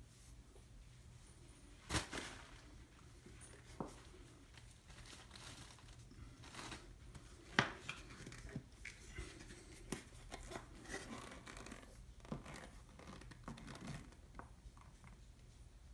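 Faint handling noise: a cloth rustling and scattered small clicks and taps as a plastic caulk tube is picked up and handled over the vanity top. Two sharper knocks stand out, about two seconds in and about seven and a half seconds in.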